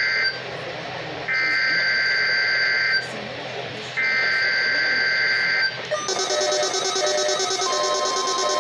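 NOAA Weather Radio SAME header: a buzzy digital data burst sent three times, each about a second and a half long with a second's gap between, marking the start of the required weekly test. Just after the third burst a different electronic sound with a short repeating beep starts, and near the end a steady single tone joins, the weather radio's warning alarm tone.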